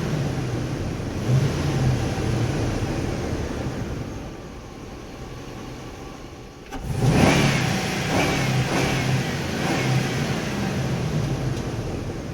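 Truck engine driving inside a parking structure: it runs under power, eases off and falls quieter from about four seconds in, then revs up sharply near the middle, with a few short high squeaks over the next few seconds.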